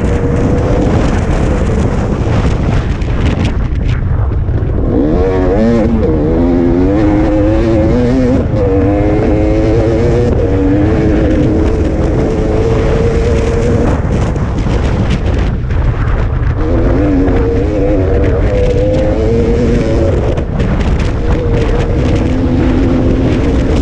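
Dirt bike engine running hard at speed, its pitch dropping and climbing back up several times as the throttle is rolled off and opened again. A heavy rumble of wind on the microphone lies under it.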